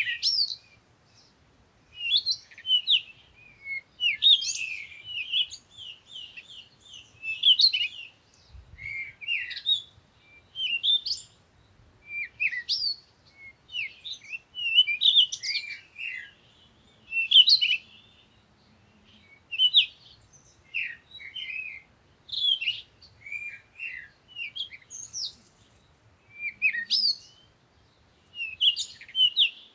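Small songbirds chirping and twittering in quick bursts of short, high notes, one after another with brief pauses.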